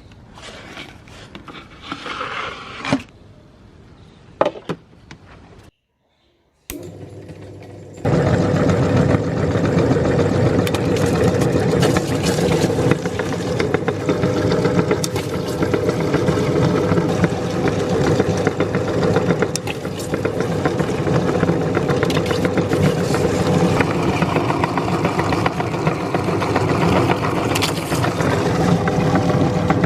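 Handling clicks and scrapes, then about eight seconds in a meat grinder's motor starts running loud and steady with a constant hum, grinding through what is fed into it.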